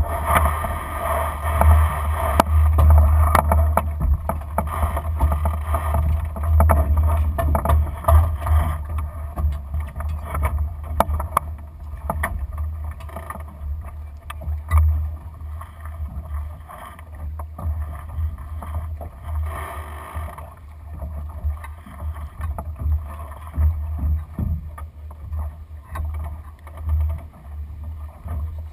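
Uneven low rumble of wind and water noise aboard a Lightning sailing dinghy under way, louder in the first several seconds, with scattered clicks and knocks from the boat's gear.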